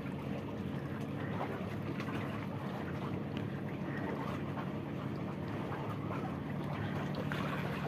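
Steady outdoor background noise at a moderate level, with no distinct sound standing out.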